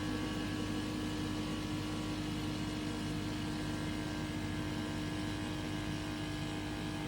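Snap-on air-conditioning service machine running its hose-cleaning cycle, flushing the hoses: a steady motor hum with one constant tone.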